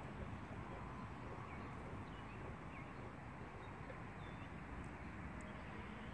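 Steady outdoor background noise with a few faint, short bird chirps now and then.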